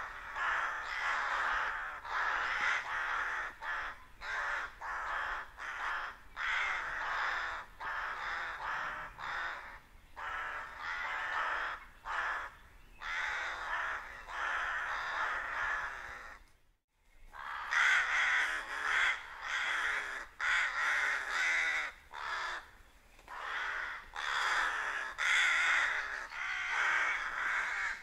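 A large flock of rooks cawing in a dense, overlapping chorus, typical of rooks gathering to roost. The calling breaks off for a moment about seventeen seconds in, then resumes.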